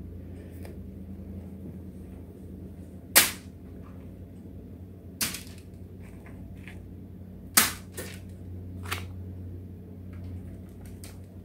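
A few separate sharp clicks and crinkles from handling foil-lined baking pans and a foam meat tray while raw hog jowl slices are laid out, over a steady low hum.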